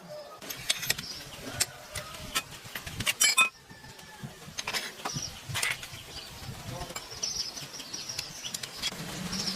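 Scattered metallic clinks and knocks, as of hand tools being handled against metal, with a quick loud run of clinks about three seconds in.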